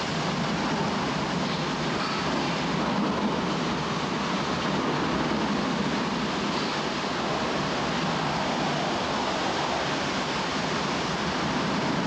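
Hurricane-force wind and heavy rain blowing hard: a steady, dense rush of noise with no let-up.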